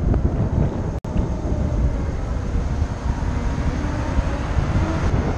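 Wind buffeting the microphone on a moving Harley-Davidson LiveWire electric motorcycle, with the faint whine of its electric motor gliding up and down in pitch underneath. The sound cuts out for an instant about a second in.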